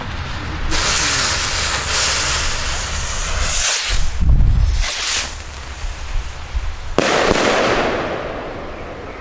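Salute rockets launching from a launch rack with a long rushing hiss, then a sharp bang about seven seconds in whose echo trails off over a couple of seconds.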